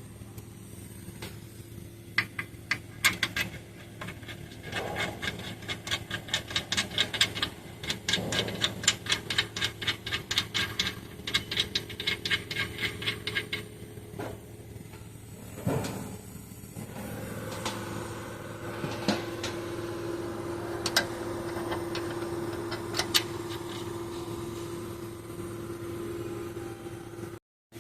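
Ratchet wrench clicking in quick, even runs as engine-mount bolts are tightened. Later a single knock, then a steady hum for the last ten seconds.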